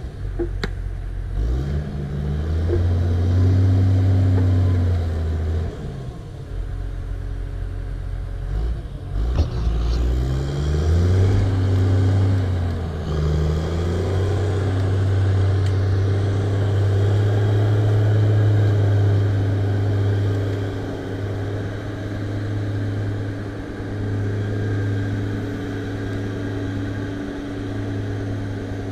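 Log skidder's diesel engine working under load as it drags a log up a skid trail. The engine revs up and down a few times in the first half, then runs more steadily.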